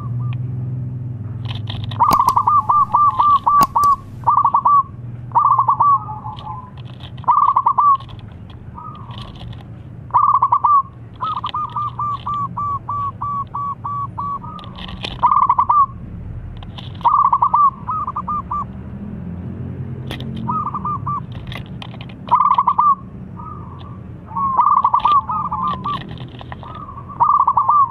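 Zebra dove (perkutut) cooing in repeated phrases of quick, stuttering notes, each phrase about a second long. Twice the notes run on into a longer rapid string of two to three seconds. A steady low hum lies beneath.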